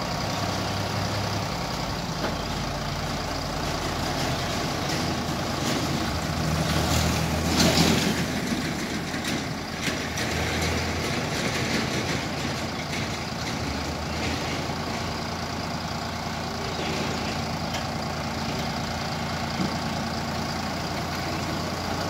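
Sonalika DI 750 tractor's diesel engine running steadily under load as its hydraulics tip a trolley full of mud, the engine note shifting a few times. The sound swells louder and rougher for a moment about eight seconds in.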